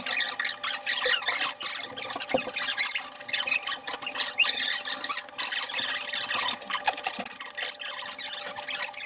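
Metal spoon scraping and clinking against a ceramic bowl of bibimbap as rice and vegetables are scooped and stirred, in a quick, irregular string of short scrapes and squeaks.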